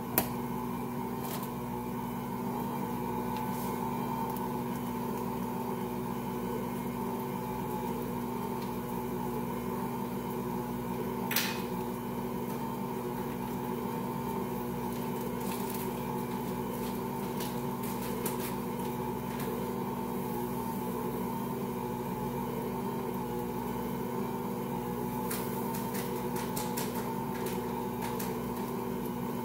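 Ankarsrum Original stand mixer running steadily under the load of a quadruple batch of bread dough, its motor giving a steady hum as the bowl turns and the roller kneads. A few sharp clicks cut through it, one around the middle and several close together near the end.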